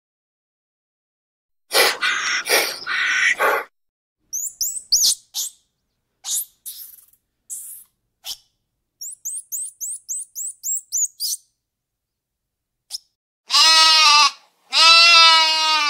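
A short rasping call, then several seconds of quick, high chirps and twitters, then a sheep bleating twice near the end, the second bleat long and wavering.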